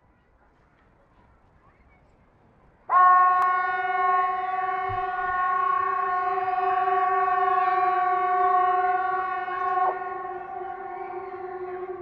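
Hesa Fredrik civil defense siren sounding during a routine test: a loud, steady, unwavering tone starts suddenly about three seconds in. It holds for about seven seconds, then drops in level and carries on weaker near the end.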